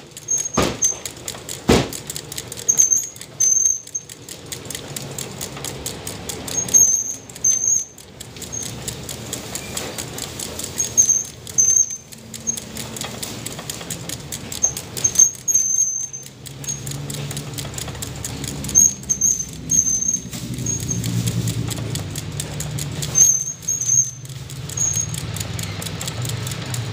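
A meat cleaver chopping roast chicken on a wooden stump block, two sharp chops about a second apart near the start, then plastic bag rustling. A short high squeak repeats about every four seconds, and a low rumble swells in the second half.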